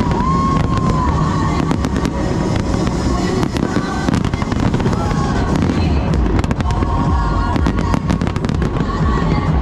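A large fireworks display bursting continuously: many sharp bangs and crackles follow close on one another over a low rumble.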